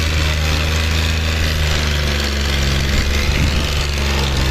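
Tractor diesel engines working hard under full load in a tractor tug-of-war, the green John Deere's exhaust pouring black smoke. A loud, steady low drone whose pitch shifts slightly a couple of times.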